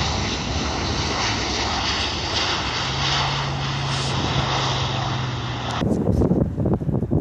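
Airliner engine noise from an aircraft at the airport, a steady rushing sound, with a low steady hum joining about three seconds in. Near the end it cuts off abruptly and gives way to wind buffeting the microphone.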